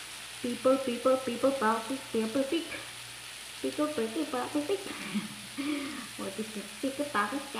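A woman humming a tune in short, steady notes, over a wooden spatula stirring cut bottle gourd in a frying pan with a light frying sizzle.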